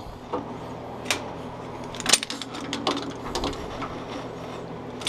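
Scattered light metallic clicks and clinks from hands handling and adjusting the depth-stop parts of a bench drill press, over a steady low hum.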